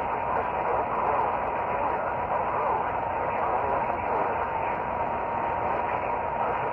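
Weather radio receiver hissing with static from a weak signal, a faint steady whistle near 1 kHz running through the noise.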